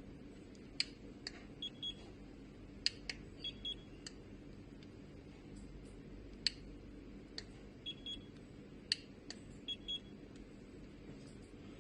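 Handheld digital infrared thermometer (GVDA ST390+/ST490+) clicking and beeping: four times over, two sharp clicks followed by two short, high beeps.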